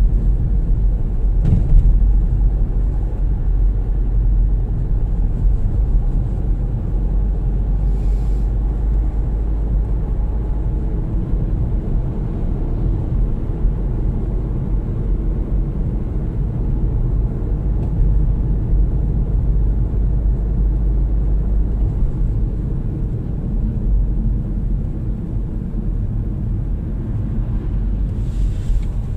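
Steady low rumble of a car on the move, with road and engine noise heard from inside the cabin. A few faint clicks come through.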